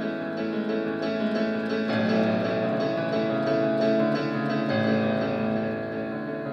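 Instrumental music with held chords that change about two seconds in and again near five seconds.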